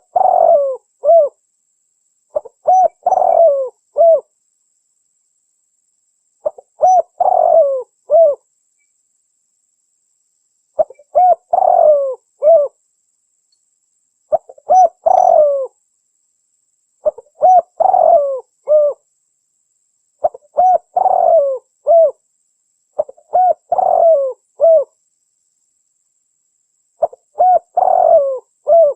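Female spotted dove (tekukur) cooing: a short phrase of several low coos repeated about nine times, roughly every three seconds, with silence between phrases. It is a lure call used to draw in males.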